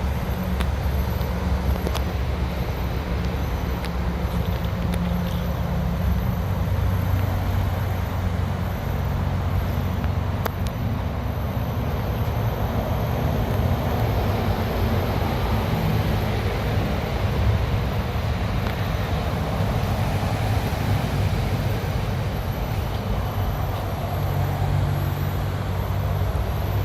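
Steady rumble of road traffic, an even low noise with no distinct events.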